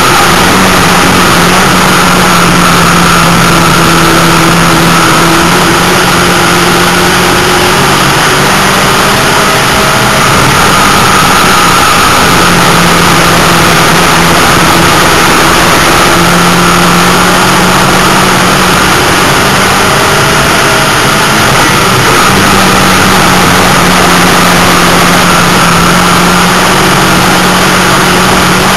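Dirt-track race car's engine heard from inside the car at racing speed, very loud throughout. Its note dips and comes back up every few seconds as the throttle is eased and reapplied around the track.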